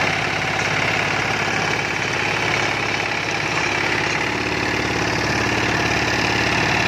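Captain mini tractor's diesel engine running steadily under load, driving a rear-mounted rotavator that churns through dry soil.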